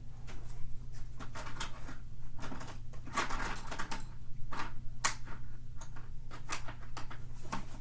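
Colouring supplies being rummaged through by hand: a run of irregular clicks and light rattles, with a denser patch of scraping about three seconds in.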